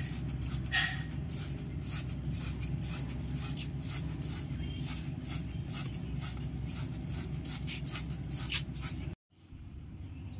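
Hand trigger sprayer on a plastic bottle squirting over the plant's leaves in many quick, irregular spurts, over a steady low rumble. The sound cuts out about nine seconds in and comes back quieter.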